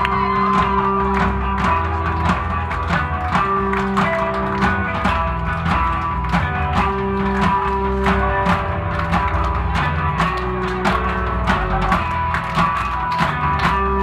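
Rock band playing live, with electric guitar, bass guitar and drums. The drums keep a steady beat under sustained guitar notes and a heavy bass line.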